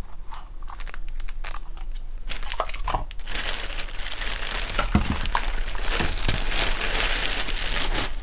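Packaging crinkling and rustling as hands rummage through a shipping box: scattered taps and clicks at first, then steady dense rustling from about three seconds in.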